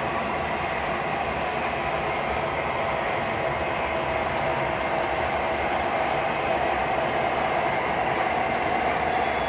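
O gauge model freight train, a long string of cars pulled by four MTH Premier diesel locomotives, running steadily on the track: a continuous rolling rumble with a steady hum over it.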